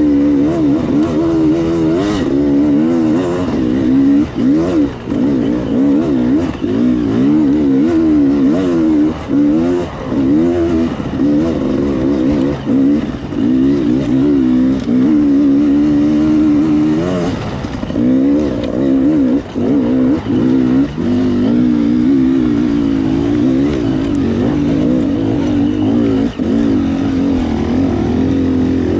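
Enduro motorcycle engine revving up and down without pause, its pitch constantly rising and falling, with brief throttle cuts every few seconds.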